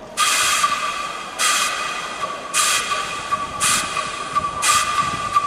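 Background music: a steady high held tone with a hissing swell about once a second.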